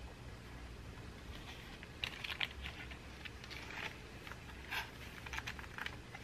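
Pages of a handmade paper junk journal being turned and handled: a few clusters of short, dry paper rustles and light taps, beginning about two seconds in.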